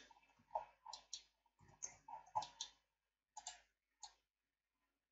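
Faint, scattered clicks of a computer mouse and keyboard, about ten of them, stopping about four seconds in.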